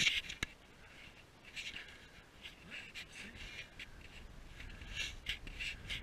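Irregular rustling and scraping of the camera being handled, with one sharp click shortly after the start.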